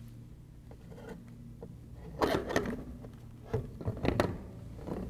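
Laser tracker being set down and seated on its mandrel mount: knocks and scrapes about two seconds in, then another cluster of knocks around three and a half to four seconds, over a faint steady low hum.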